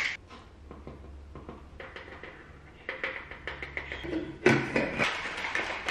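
Plastic supplement tub and scoop handled on a kitchen counter. A sharp knock comes at the start, then light clicks, scraping and rustling as powder is scooped and tipped into a plastic bottle, busiest in the second half. A low steady hum runs underneath.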